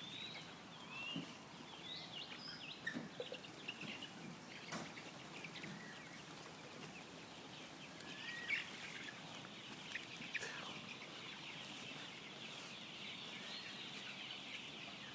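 Faint bird calls from free-range village chickens: scattered short high chirps and cries. A steady high-pitched drone joins about halfway through.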